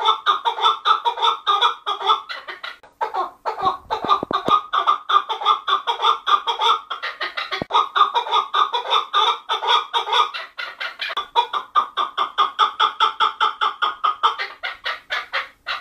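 Chukar partridge calling: a long, fast series of clucking notes, several a second, with a brief break about three seconds in and a sudden stop at the end.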